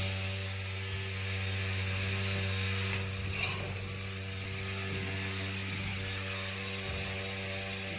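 Running HVAC equipment giving a steady mechanical hum, a low droning tone with overtones, with a few faint light rattles over it.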